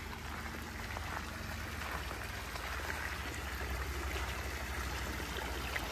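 Running water trickling and splashing steadily, with a low rumble underneath.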